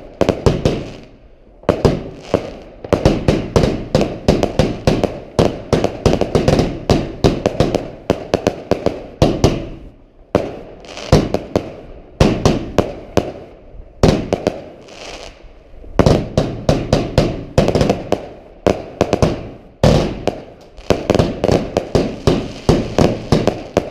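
Fireworks going off in dense volleys of rapid cracks and bangs, many a second, with short lulls between volleys.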